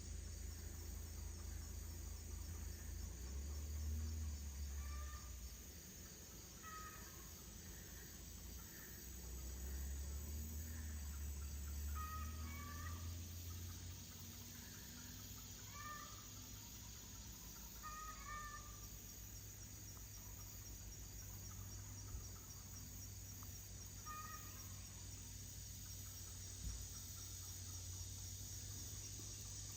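Rural outdoor ambience: birds giving short, scattered chirps over a steady high drone of insects, with a low rumble that swells twice in the first half.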